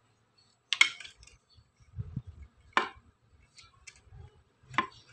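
Three sharp clicks, about two seconds apart, with faint rustling between them, as a wire and its metal terminal are handled on a homemade fish-shocker inverter.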